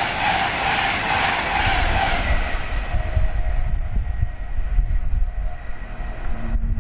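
A train passing at speed on the line, its noise dying away after about two to three seconds as it recedes, leaving wind buffeting the microphone.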